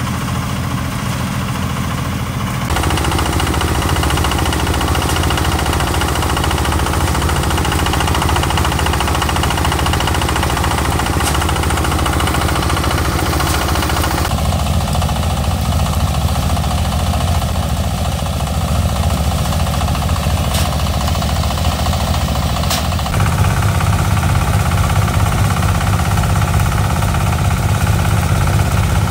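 An engine running steadily and loudly with a rapid knocking pulse; its tone shifts abruptly a few seconds in, about halfway through, and again later on.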